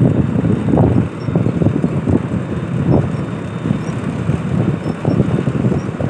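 Combine harvester running close by: a steady mechanical rumble with dense, irregular rattling.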